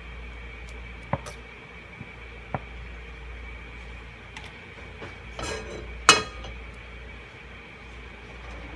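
Kitchenware being handled: a few light clicks and knocks, then one loud ringing clink about six seconds in, over a steady low background hiss.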